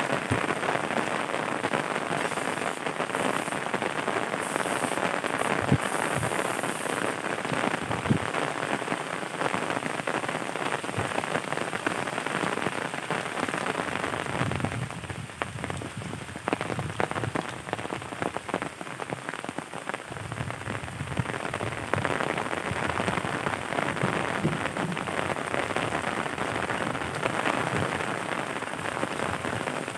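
Steady rain falling, a dense patter of drops, easing off a little about fifteen seconds in and picking up again a few seconds later.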